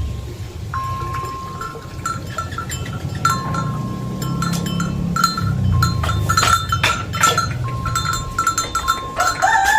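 A livestock bell on the cow clanking irregularly, its clapper strikes giving sharp clicks and ringing tones that stop and start as the animal moves, over a steady low rumble.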